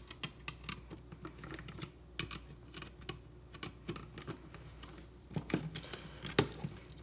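Irregular small clicks and taps from hands handling an electrical outlet and its wiring, a little busier and louder toward the end.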